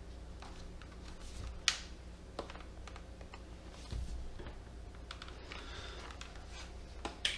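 Plastic clicks and scrapes from the casing of a Lenovo 710-15IKB laptop being pried at with hand tools: a stubborn part that won't come free. A sharp click about a second and a half in, a dull knock about four seconds in, and a couple more clicks near the end.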